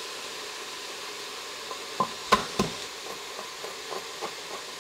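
Chopped onion, celery and leek sizzling steadily in an Instant Pot's inner pot on sauté mode. About two seconds in come three sharp knocks, then a run of lighter taps, about three a second.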